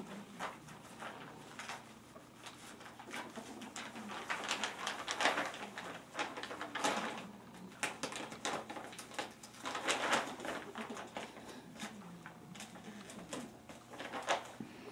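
Ferret dooking: bursts of soft, rapid clucking chuckles, several times over, the sound a ferret makes when excited at play.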